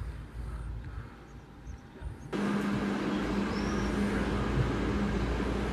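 Low rumble, then from a little over two seconds in a steady mechanical hum with a constant low tone from a tram standing at a station platform.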